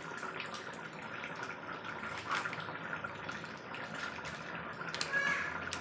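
A thick pointed gourd and prawn curry simmering in a steel kadai: the gravy bubbles steadily, with many small irregular pops as bubbles burst at the surface.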